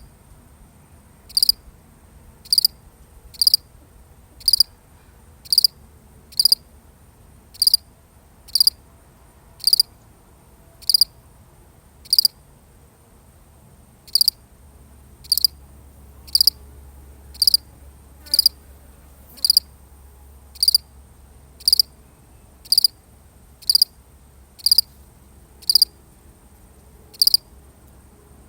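A single cricket chirping: short high chirps about once a second, with one longer pause of about two seconds near the middle.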